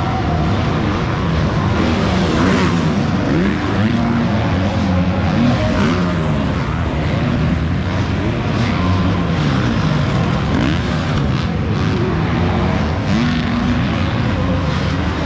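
Several motocross bikes racing on the track, their engines revving up and falling back over and over as riders work the throttle and shift, many engines overlapping.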